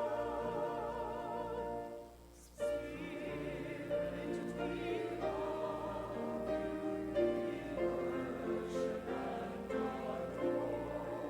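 A choir singing sustained phrases with vibrato, breaking off briefly about two seconds in before the next phrase.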